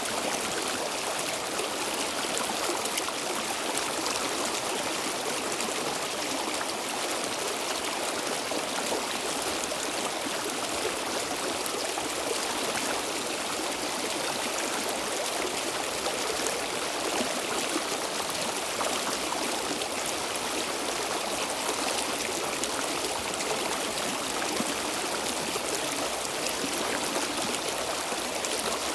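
Stream water flowing steadily over stones, an even rushing and trickling that does not change.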